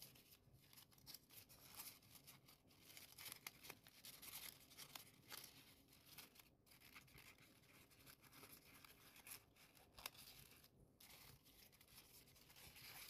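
Faint rustling and light crinkling of folded paper units as they are handled and slotted together into an origami kusudama, with scattered small ticks.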